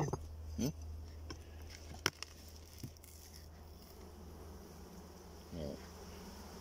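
Honeybees buzzing steadily in a hive as its wooden cover is opened, with a few short knocks, the sharpest about two seconds in, from the cover and hive tool on the wooden box.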